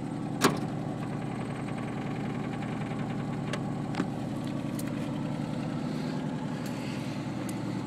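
A 1990 Cadillac Sedan DeVille's 4.5-litre V8 idling steadily. A single sharp click comes about half a second in.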